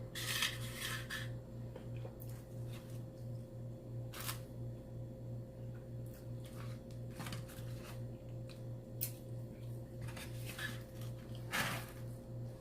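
Eating and food-handling noises: scattered short clicks, crunches and rustles at irregular moments, over a steady low hum.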